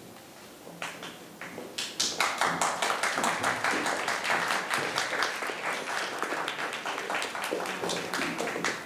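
Audience applauding: a few scattered claps about a second in, swelling into dense, steady applause from about two seconds in.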